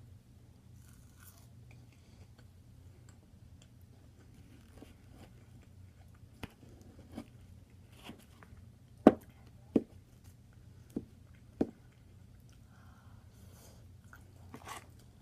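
Close-up chewing and crunching of lettuce salad and steak, with a handful of sharp clicks or taps in the second half, the loudest a little past the middle, over a low steady hum.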